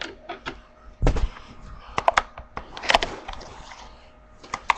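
Packaging of a boxed Rubik's Cube being handled: scattered clicks and taps, with a heavier thump about a second in.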